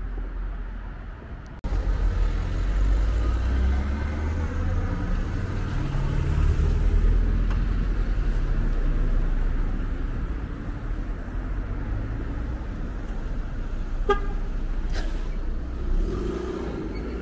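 Road traffic in a town street: car engines rumbling as vehicles pass, one engine note rising as it accelerates, starting abruptly about a second and a half in. A single short car horn toot sounds near the end.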